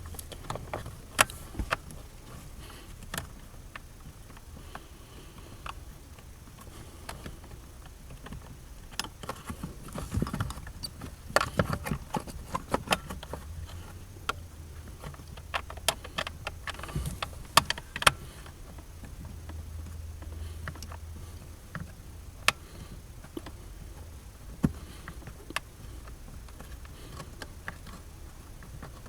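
Irregular clicks and knocks of a hand tool on metal and plastic under a car's dashboard as the screws holding the heater blower resistor are worked loose. The loudest knocks come about a third of the way in and again past halfway.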